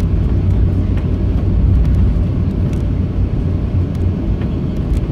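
Cabin noise of a Boeing 737-700 taxiing: the CFM56 engines running at idle as a steady low hum over the rumble of the airframe rolling on the taxiway, with a few faint ticks.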